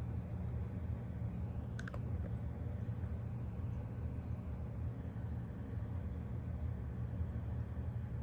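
Steady low hum of room noise, with a quick double click about two seconds in.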